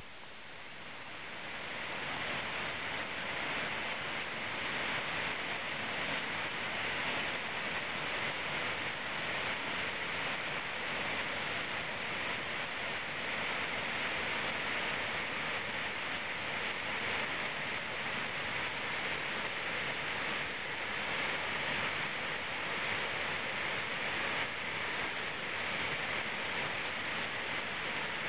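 Waterfall rushing over stepped rock ledges into a shallow pool: a steady, unbroken roar of falling water that swells over the first couple of seconds and then holds even.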